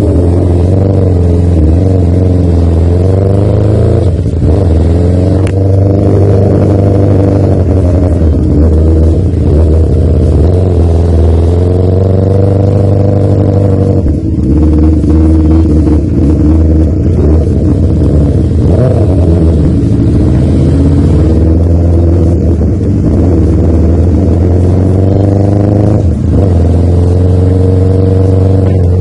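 2005 Yamaha R6's inline-four engine pulling away and accelerating on the road, its pitch rising and falling again and again, with a few short breaks in the note as the throttle is rolled off.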